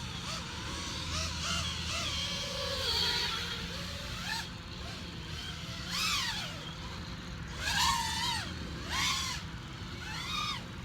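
FPV racing quadcopter's brushless motors whining, the pitch rising and falling with each throttle punch, a few times in the second half, over a steady low hum.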